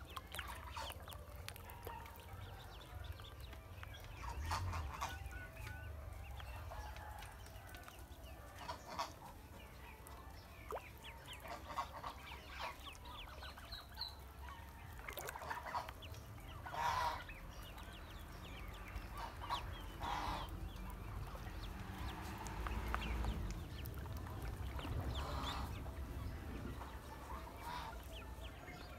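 Domestic fowl calling: scattered short honking and clucking calls, some in quick runs, with several louder calls in the second half.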